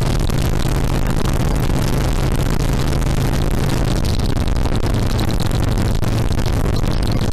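Harley-Davidson Sportster XL1200R's air-cooled V-twin running steadily, with a wash of wind and road noise. About four seconds in, the engine note drops to a lower pitch and holds there.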